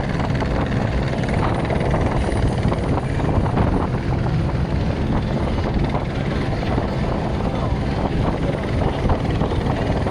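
Helicopter in flight, its rotor and engine running steadily and loudly.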